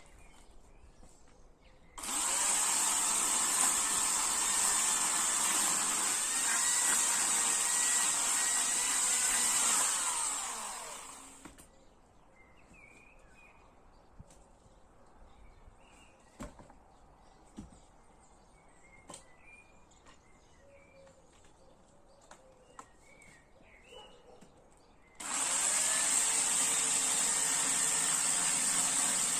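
Chainsaw running at full speed for about eight seconds, then winding down with a falling pitch; birds chirp in the pause. The saw comes in abruptly again at full speed a few seconds before the end.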